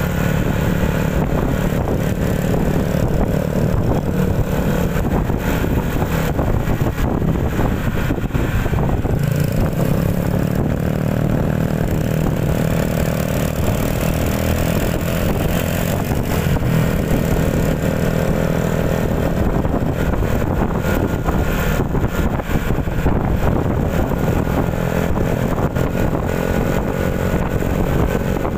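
Motorcycle engine running steadily at road speed, heard from the rider's seat, with wind and road noise; its pitch shifts a little as the speed changes.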